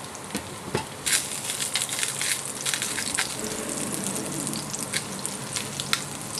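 Sliced garlic sizzling and crackling in hot oil in a nonstick frying pan as it is stirred with a silicone spatula. The sizzle grows louder about a second in, with a couple of light knocks within the first second.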